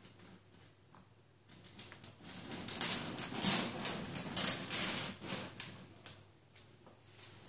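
Brown paper carrier bag rustling and crinkling as a cat pushes into and under it: a run of quick, irregular crackles starting about a second and a half in, busiest in the middle and fading near the end.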